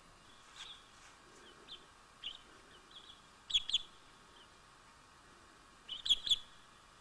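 Short, high bird chirps, scattered and irregular, with the loudest coming in two quick clusters about halfway through and near the end.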